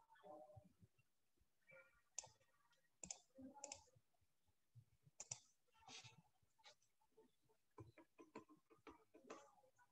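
Near silence with faint, irregular clicks and taps from working a computer: a mouse and pen on the screen.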